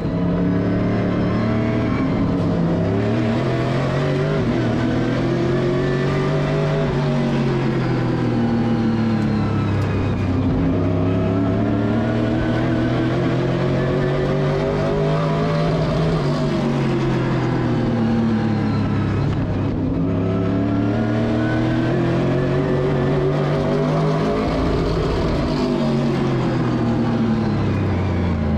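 Late model stock car's engine running at racing speed on a short oval. Its pitch climbs in long sweeps on the throttle and drops back about every nine or ten seconds as the car lifts for the turns.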